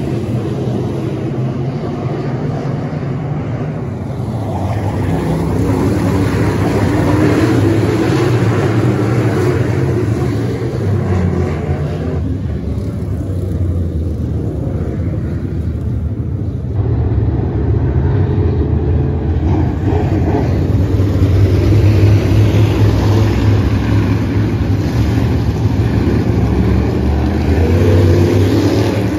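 Dirt late model race cars' engines running on the track together, a steady low drone that swells and fades as the field passes.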